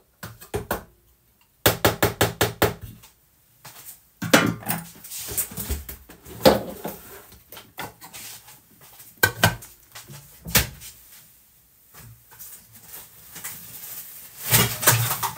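Hard kitchenware handled on a worktop: a quick run of about eight sharp taps a couple of seconds in, as of a spatula knocked against a food processor's bowl or blade to shake off biscuit crumbs, then scattered knocks, clatter and scrapes of plastic and glass parts.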